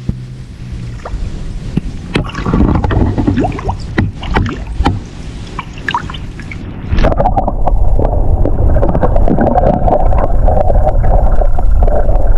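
Scattered knocks and clicks over water noise, then about seven seconds in a boat motor starts up and runs loudly and steadily.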